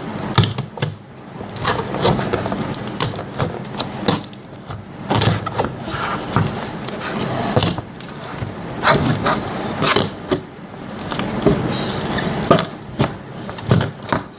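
Slime being squeezed, poked and stretched by hand in its container, making a rapid, irregular run of clicks and pops.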